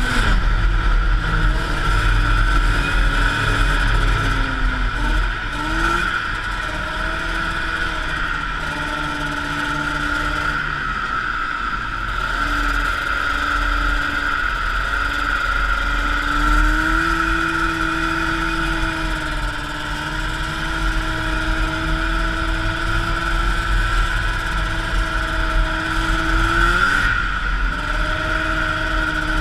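1979 Arctic Cat El Tigre 6000 snowmobile's liquid-cooled Suzuki 440cc two-stroke engine running under way, its note rising and falling as the throttle is worked, with a marked dip about eleven seconds in. A steady high whine runs alongside the engine note.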